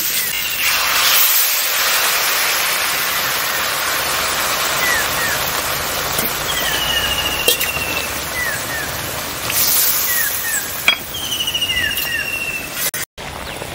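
Prawn and taro-stem curry sizzling and bubbling in a kadai just after water has been added, a steady hiss with a few clicks from the stirring spatula.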